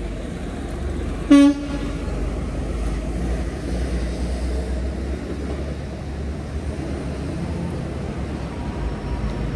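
Steady wind and road rumble from riding an e-bike, with one short horn toot about a second and a half in.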